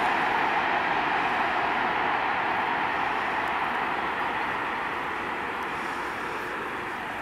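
Freight train of covered wagons rolling past on the rails: a steady rolling noise of wheels on rail that slowly fades.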